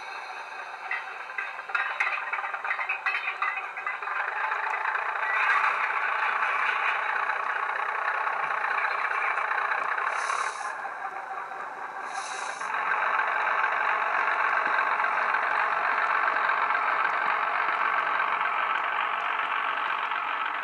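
Model class 03 diesel shunter's DCC sound decoder (Wheeltappers sound file) playing diesel shunter engine sound through the loco's small speaker as it pulls away with a train of wagons. Wagon and coupling clatter comes in the first few seconds. About halfway through, the engine note drops with two short hisses, as at a gear change, and then comes back louder.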